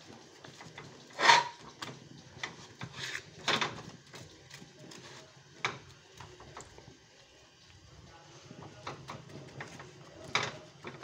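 Several sharp knocks and clatters, the loudest about a second in, from a tawa and roti being handled by hand on a gas stove while the roti is turned to finish cooking, over a low steady hum.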